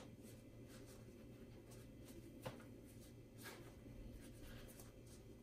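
Near silence with faint paper rustles and a soft tap about two and a half seconds in: a paper towel being pressed onto inked Tyvek and lifted off.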